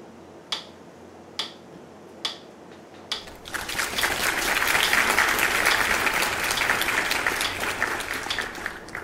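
Sharp ticks a little under a second apart, then hand clapping that starts about three seconds in and goes on for about five seconds, fading near the end.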